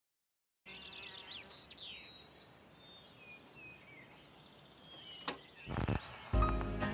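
Birds chirping and calling, soft and intermittent. About five seconds in, a click and a short crackle as a record stylus sets down on a vinyl record, and music starts near the end.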